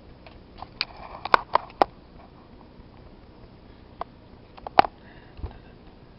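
Computer mouse clicking: four sharp clicks in quick succession about a second in, two more near five seconds, then a soft low thump.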